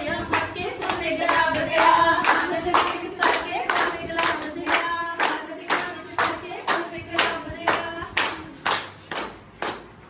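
Hand clapping in a steady rhythm, about two claps a second, keeping time with voices singing a Punjabi folk song. The singing fades about halfway through, and the clapping carries on alone, getting quieter near the end.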